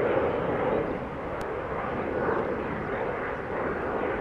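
Airbus A320-232 climbing out after takeoff, its two IAE V2500 turbofans at climb thrust heard from the ground: a steady rush of jet noise that slowly grows quieter as the aircraft draws away.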